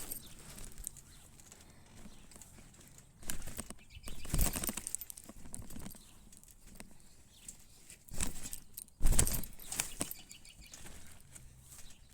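Bursts of rustling and thumping in two pairs, one around three to four and a half seconds in and another around eight to nine seconds in, the last the loudest.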